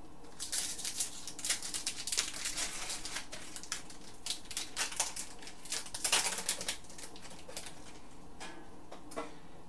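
Foil wrapper of a hockey card pack being crinkled and torn open by hand: a dense crackle of crinkles for the first six or seven seconds, thinning to a few rustles near the end.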